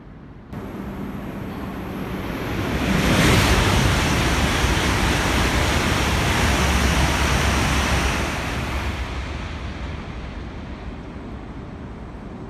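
An H5 series Hayabusa coupled to an E3 series Komachi Shinkansen train passing through the station. A rush of air and wheel noise builds over about three seconds, stays loud for about five, then fades away.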